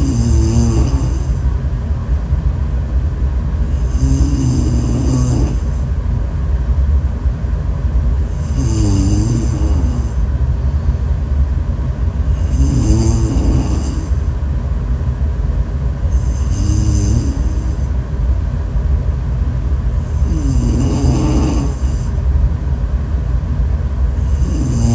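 A person snoring in a slow, regular rhythm, one snore about every four seconds, each with a high whistling edge, over a constant low rumble.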